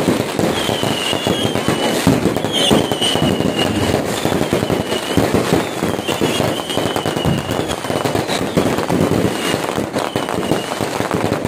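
Fireworks display: a dense, continuous barrage of aerial shell bursts and crackling stars, many sharp bangs and pops overlapping, with short high whistles cutting through every second or two.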